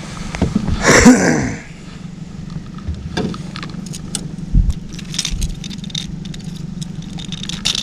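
Metal clicking and jangling of a large lure's hooks and hardware while a small pike is unhooked, over a steady low hum. There is a brief loud burst about a second in.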